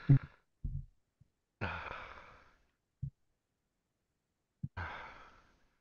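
A person breathing out heavily into a microphone twice, each breath fading away, with a few short low thumps between the breaths.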